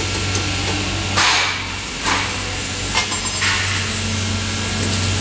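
Steel parts and toggle clamps on a metal welding jig handled by hand: a few separate metallic knocks and scrapes over a steady low hum.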